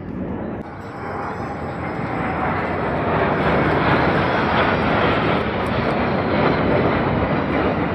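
Jet aircraft flying past overhead, a broad rushing noise that builds over the first few seconds and stays loud, with a faint falling whine.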